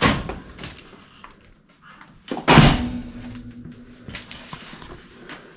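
A knock, then a loud bang about two and a half seconds in, followed by a ringing tone that dies away over about a second and a half, and a few light clicks.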